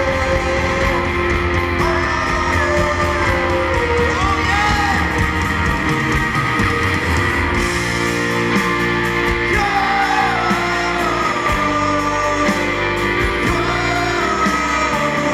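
Live rock band playing, acoustic and electric guitars strumming under a lead singer's wavering melody.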